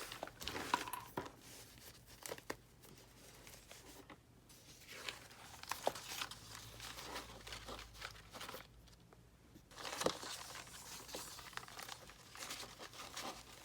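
Paper pages rustling and crinkling, with small sharp clicks and taps, as a needle and thread are worked through the punched holes of a paper signature in hand bookbinding. The sounds come in irregular spurts rather than a steady run.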